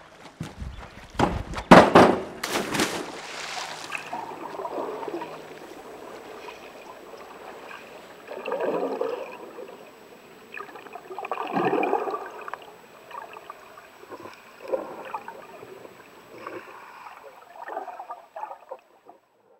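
Water splashing loudly about two seconds in, then soft gurgling and bubbling water that swells and fades every couple of seconds.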